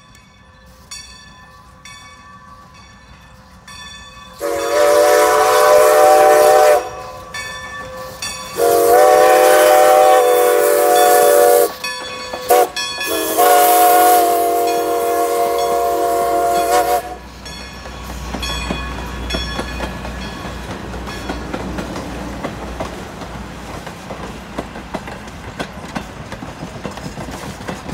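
Steam whistle of Strasburg Rail Road No. 90, a 2-10-0 Decapod steam locomotive, sounding the grade-crossing signal as it passes: two long blasts, a brief short one, then a final long blast, each a several-note chord. A rhythmic ringing comes before the whistle, and afterwards the passenger coaches roll past with a steady rumble and wheel clatter on the rails.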